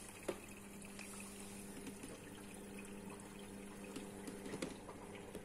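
Front-loading washing machine filling at the start of a wash cycle: water running into the drum over a steady low hum, with a few light clicks.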